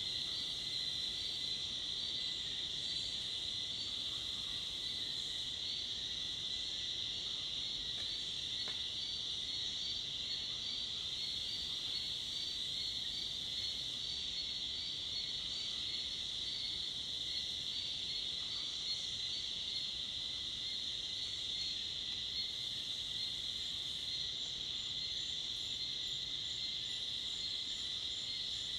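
Evening chorus of tropical forest insects, cicadas and crickets, making a steady high-pitched drone with no breaks. A faint rapid pulsing chirp sits above the drone through the second half.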